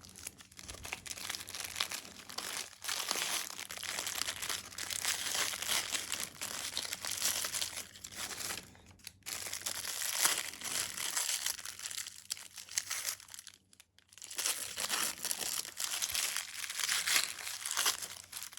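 Paper wrapping of a firecracker pack being torn open and crinkled by hand, crackling irregularly with two short pauses.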